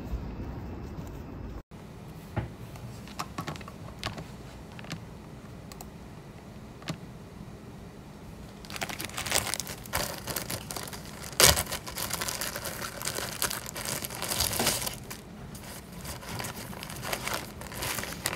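A clear plastic zip bag and a paper wrapper crinkling as they are handled and opened, with a sharp snap about halfway through. Before that there are a few light taps and clicks, and a low outdoor rumble that cuts off about two seconds in.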